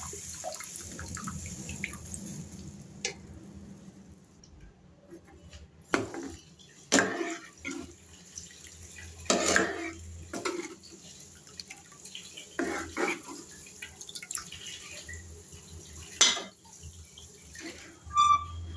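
Water running, as from a kitchen tap, fading away over the first few seconds. After that come scattered knocks and clatters of pots and utensils.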